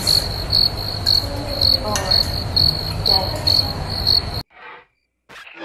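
Cricket-like chirping: a high-pitched chirp repeating about twice a second over a low background rumble, cutting off abruptly about four and a half seconds in.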